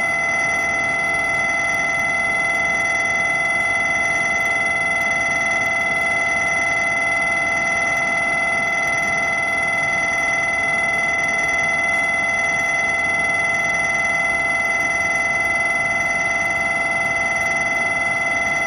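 Station platform departure bell ringing without a break, a steady metallic ring that signals the train is about to leave.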